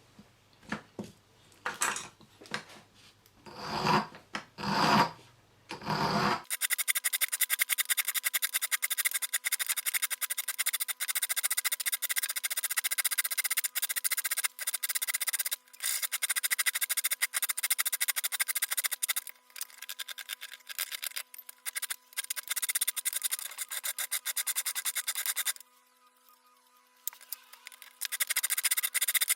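A few separate scraping strokes, then a fast, dense rasping rattle over a steady hum, which breaks off for a couple of seconds near the end.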